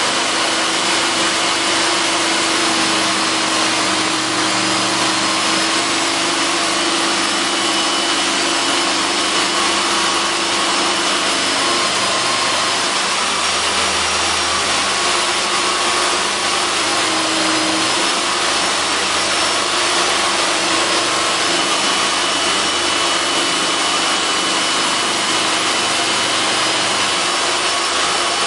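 Metabo STEB 65 Quick jigsaw running steadily as it cuts through a wooden board, with a vacuum extractor drawing the sawdust through a hose on the saw's dust port.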